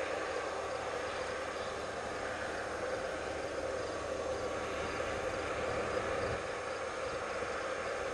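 Steady running noise of harvest machinery working in a grain field, an even drone without pauses.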